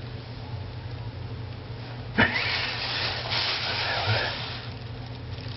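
Thin plastic bag rustling and crinkling, starting suddenly about two seconds in and lasting a couple of seconds, over a steady low hum.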